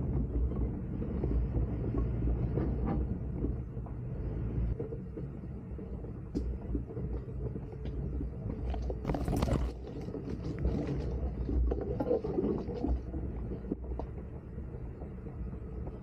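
A 1999 Jeep Cherokee XJ driving, heard as a steady low rumble of engine and road noise with scattered knocks and rattles, and one louder clatter about nine seconds in.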